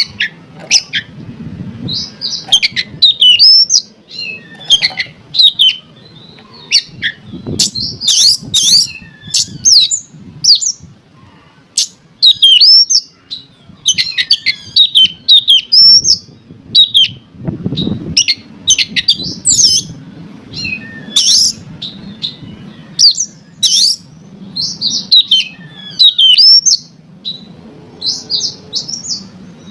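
Oriental magpie-robin (kacer) singing a loud, fast, varied song of short whistled phrases and sharp chattering notes with brief pauses between them. It is a lure song of the kind played to provoke a kacer into singing.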